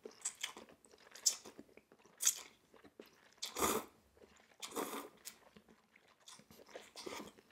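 A person slurping and chewing Korean potato noodles: short, noisy slurps about a second apart, with wet chewing in between.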